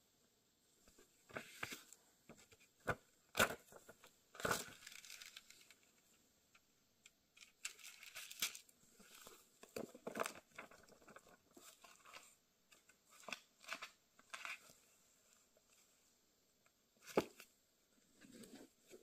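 Old cloth-bound hardback books being handled: paper pages rustling as they turn, with intermittent soft clicks and a few sharper knocks as covers close and books are picked up.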